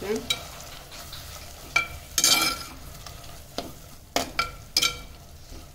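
A slotted metal spatula stirring chopped onions and tomatoes in a clay cooking pot. It gives a run of sharp scrapes and knocks against the pot, some ringing briefly, over a faint sizzle of frying in oil.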